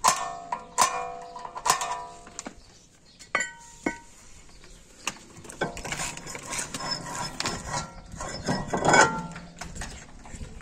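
Sharp metallic clinks that ring briefly, three in the first two seconds and two more a little later, as steel brake parts and a screwdriver knock together. Then the rear brake disc is slid onto the hub and turned by hand, scraping and rubbing against the parking-brake shoes inside it as the adjustment is checked for drag. The scraping is loudest near the end.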